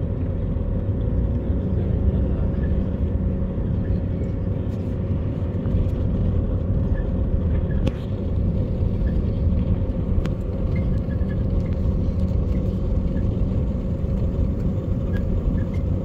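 Car driving slowly on a wet town street, heard from inside the cabin: a steady low rumble of engine and tyre noise.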